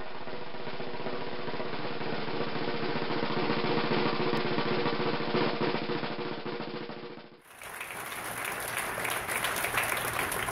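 A snare drum roll swells for about four seconds, then fades and stops about seven seconds in. After a cut, the room's live noise takes over, a dense clatter of many small sounds.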